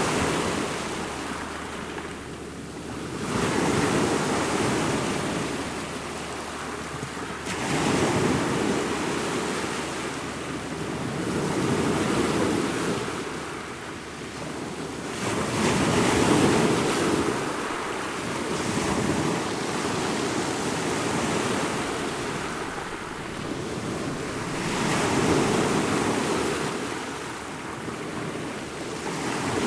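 Ocean surf: waves breaking and washing ashore in a steady rhythm, the rush swelling and fading roughly every four seconds.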